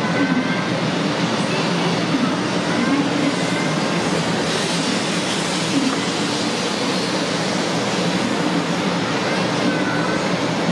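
500 series Shinkansen pulling out of the station at low speed, giving a steady rumble of wheels and running gear. Faint wavering tones run through it.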